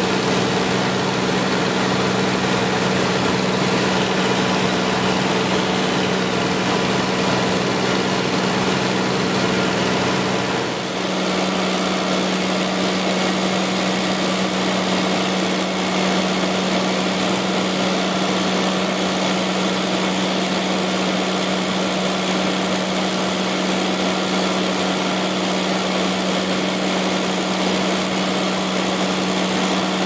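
Cessna 210's six-cylinder piston engine and propeller drone steadily in cruise, heard inside the cabin, with a steady low hum and rushing air noise. The sound dips briefly about eleven seconds in and then carries on with a slightly different hum.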